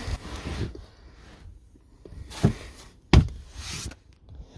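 Handling noise: a rustle, then two sharp knocks less than a second apart, followed by more rustling.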